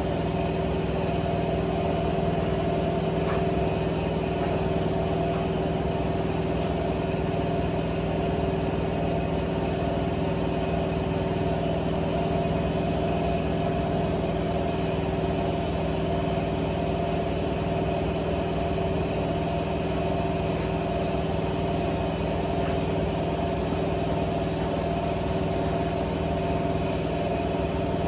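AEG 7000 Series Lavamat washing machine running steadily: a constant machine hum with a thin, high whine above it and no change in pace.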